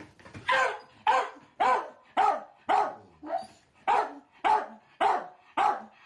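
Miniature dachshund barking over and over in a steady rhythm, almost two barks a second, about ten in all.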